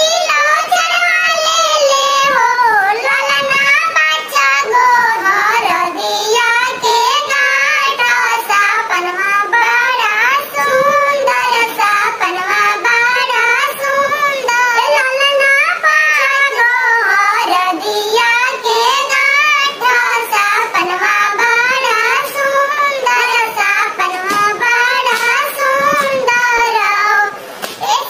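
A high-pitched, cartoon-like singing voice, as from a Talking Tom pitch-shift, sings a Karma jhumar folk song in long wavering phrases. There is a short break about a second before the end.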